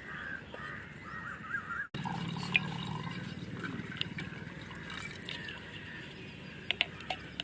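Milk being poured from a cup into a cooking pot, a steady trickling pour.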